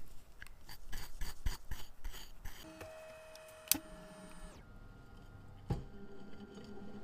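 Light clicks and scrapes from a brush and pegwood working a steel watch bridge in a glass dish of cleaning fluid. About three seconds in, a watch-cleaning machine takes over: its motor hums steadily with a sharp click, changes tone, then runs on with a single knock.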